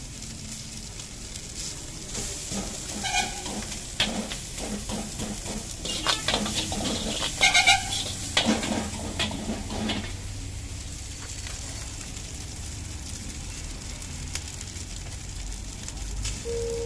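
Fried rice sizzling in a hot wok while a steel ladle stirs and scrapes it. The ladle knocks against the wok in a run of clinks, with a few loud ringing strikes between about two and ten seconds in, then the stirring goes quieter.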